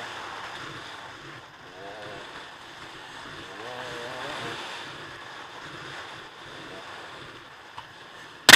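Dirt bike engine revving up and down as it rides a dirt trail, with wind buffeting the microphone. A single sharp knock near the end.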